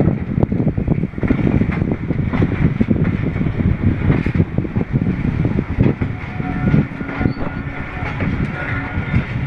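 Millat Express passenger train rolling out of the station, heard from aboard a coach: a steady rumble with wheels clattering and knocking over the rail joints.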